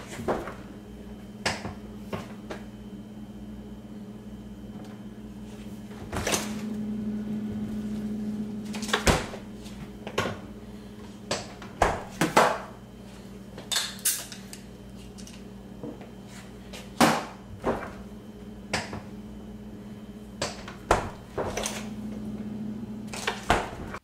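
Whirlpool side-by-side refrigerator doors being pulled open and pushed shut again and again, a dozen or more clunks and knocks of doors and handles. A steady low hum runs underneath.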